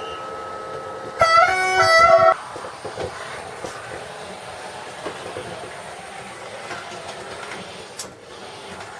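Recorded railway sound effect played through loudspeakers. A steady high tone gives way about a second in to a loud train horn that steps between notes for about a second, then a train rolling along with scattered wheel clicks.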